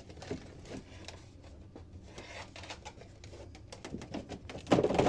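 Faint rustling and light clicks of a wire being fed under a golf cart's plastic side trim panel, with a cluster of louder knocks near the end.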